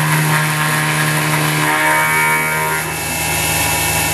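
X2 mini mill running under CNC control while an end mill cuts 6061 aluminium: a steady machine whine made of several tones with a hiss over it. The tone shifts about two to three seconds in.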